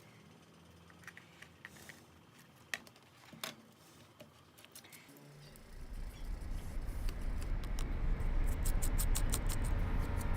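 Faint, scattered small clicks and taps for the first half. About halfway in, background music fades in and grows steadily louder, with a quick, even ticking near the end.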